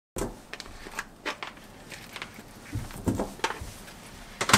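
Raw chicken drumettes being dropped by hand into a stainless steel bowl, making soft irregular thuds and clicks, with one louder knock near the end.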